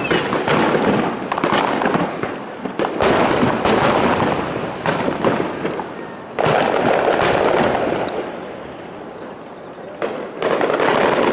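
Starmine fireworks: a rapid barrage of aerial shells bursting in quick succession, with sharp bangs and crackle. The barrage swells in two heavy volleys, about six seconds in and again near the end, with a quieter lull between them.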